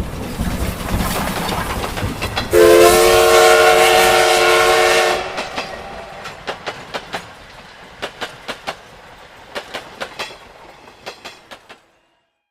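A train passing: a rumble, then a loud chord blast of its whistle about two and a half seconds in, lasting about two and a half seconds, followed by wheels clicking over rail joints as it fades away.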